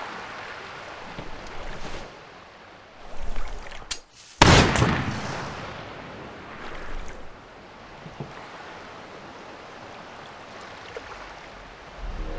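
A single pistol shot about four and a half seconds in, sharp at the start and dying away over a second or so, over a steady wash of sea waves.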